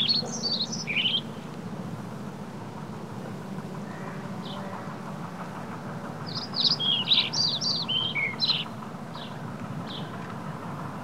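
Songbird chirping in quick high phrases: a flurry at the start, a few single chirps, then a longer run of chirps about six to nine seconds in, over a steady low background noise.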